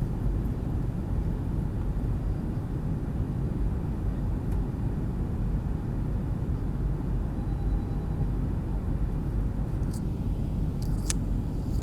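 Steady cabin noise of an Airbus A320 in flight: an even low rumble of the engines and airflow heard from inside the cabin, with a couple of faint clicks near the end.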